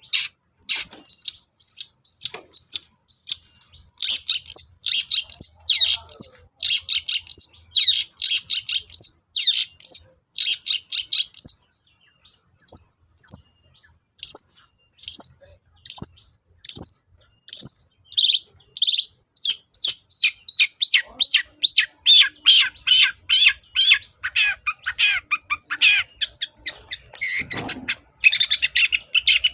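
Long-tailed shrike singing a long, varied song. Stretches of rapid, harsh chattering notes alternate with spaced single high notes, kept up without a break.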